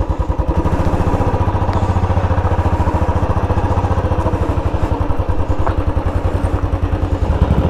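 Motorcycle engine running at a steady pace while the bike is ridden, with an even low engine beat throughout.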